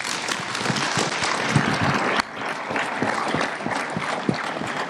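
A roomful of people applauding: many hands clapping together in a steady patter, dipping briefly about two seconds in.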